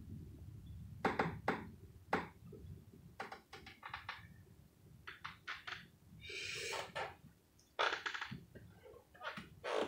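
Scattered light knocks, taps and clicks of small objects being handled close to the microphone, with a short hiss about six and a half seconds in.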